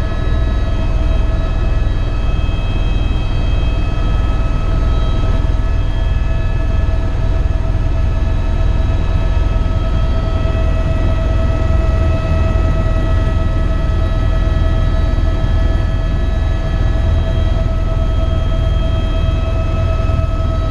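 Eurocopter EcoStar helicopter in flight: a loud, steady rotor and turbine rumble with a constant high whine over it.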